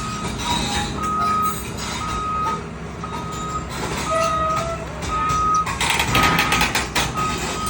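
Heavy-vehicle reversing alarm beeping about once a second, each beep about half a second long, over a running engine's low rumble. A short rush of noise comes about six seconds in.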